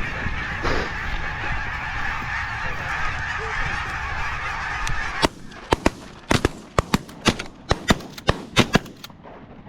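A flock of Canada geese honking continuously, many calls overlapping, which cuts off abruptly about five seconds in. A quick irregular run of a dozen or so sharp clicks follows.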